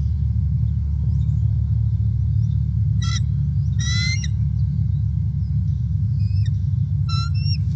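Bald eagle calling in short, high, piping bursts: one about three seconds in, a longer call a second later, then brief calls near the end, over a steady low rumble.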